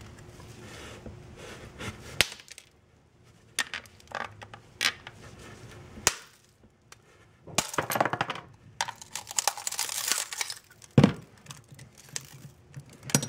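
Glass-breaker tip on the butt of a Sanrenmu 7056 folding knife striking a glass bottle: several separate sharp taps, then the glass cracks and crunches as the bottle breaks, with a heavier knock near the end.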